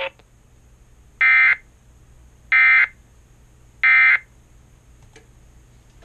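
Emergency Alert System end-of-message signal, played back by a TFT EAS 911 decoder: three short digital data bursts of the SAME "NNNN" code about 1.3 seconds apart, which mark the close of an alert message.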